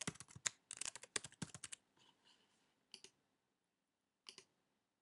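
Computer keyboard typing, a quick run of key clicks lasting about two seconds. It is followed by two separate single clicks, about three and four seconds in.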